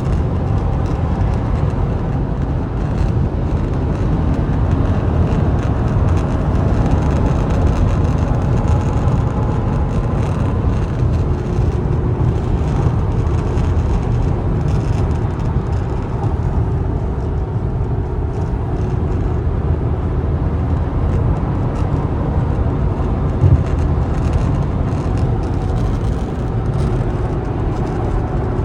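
Steady road and wind noise inside a 2019 Toyota RAV4's cabin at highway speed, with a faint intermittent rattle from the driver-side dash near the A-pillar, a rattle that only appears at 75 mph and above. One sharper knock near the end.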